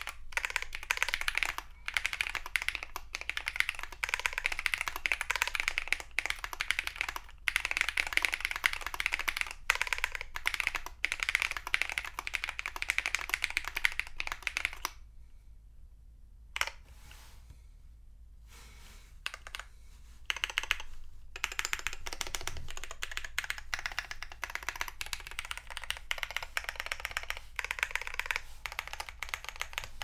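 Typing on an Epomaker GK96XS aluminum mechanical keyboard with lubed Holy Panda tactile switches, PE foam, a tape mod and neoprene case foam. It is a fast run of keystrokes that thins to a few scattered keypresses for several seconds just past the middle, then picks up again.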